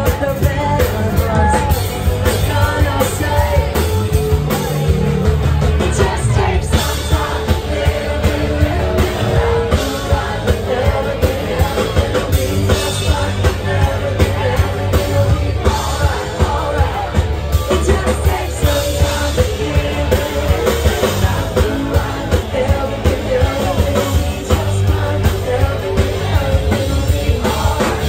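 Live rock band playing loudly with a steady beat: a woman singing lead into a microphone over guitar and drums.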